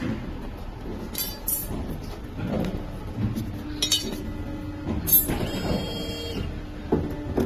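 Bent metal-rod coat hangers clinking against each other and the workbench as they are handled: several sharp metallic clinks that ring briefly, over a steady low hum.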